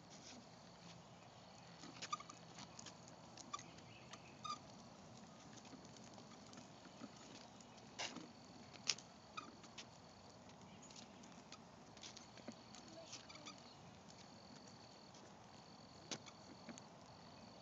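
Faint, near-silent outdoor quiet: a high steady insect trill that starts and stops every second or two, with scattered light clicks and taps from a child's tricycle being pushed over concrete.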